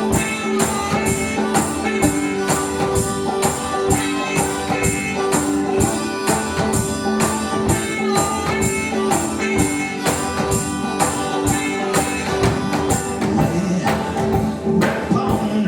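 Live band playing an up-tempo instrumental: a harmonica tune of held notes over a steady percussion beat struck about four times a second.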